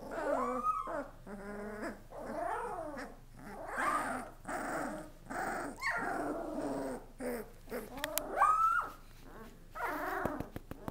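Karakachan puppies about two weeks old growling, whining and yipping in a string of short calls, the loudest a rising yelp about eight seconds in.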